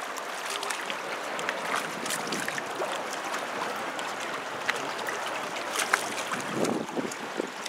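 Choppy water lapping and splashing below a pier, with wind buffeting the microphone and a few small clicks. The splashing swells near the end as a hooked fish thrashes at the surface.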